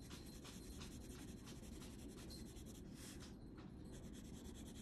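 Faint scratching of a colored pencil stroking back and forth on paper, a steady run of short strokes about three a second.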